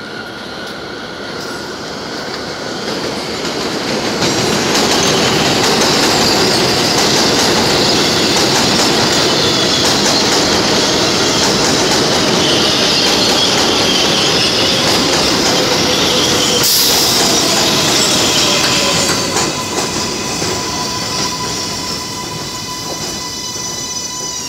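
R188 subway train on the elevated 7 line pulling into the station. The rumble of the wheels on the track builds over the first few seconds and stays loud, with the wheels squealing high on the rails. It eases off as the train slows to a stop, leaving a steady high whine near the end.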